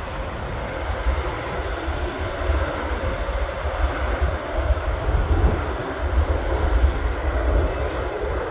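Jet aircraft engines running at takeoff power, a steady loud rush of noise over a deep, fluttering rumble.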